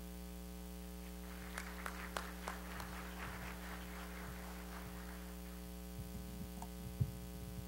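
Steady electrical mains hum in the microphone feed, with faint scattered clicks and rustling for a few seconds and one dull thump about seven seconds in.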